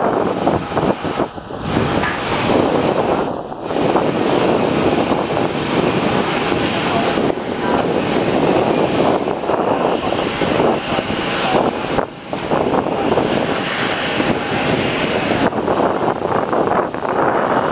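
Airbus A320 jet engines running at low taxi power as the airliner rolls past, mixed with heavy wind buffeting on the microphone.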